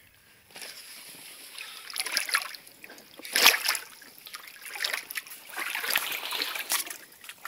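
Shallow spring water splashing and sloshing in irregular bursts as it is disturbed and its silty bottom stirred up. The loudest splash comes about three and a half seconds in.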